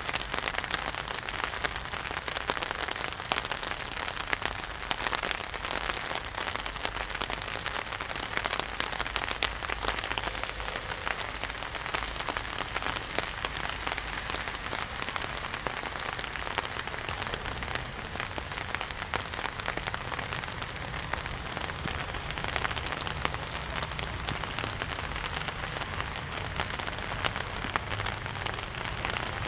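Steady rain falling on the water of an outdoor swimming pool and its wet paved deck: a dense, even hiss made of countless small drop impacts, with a faint low rumble underneath.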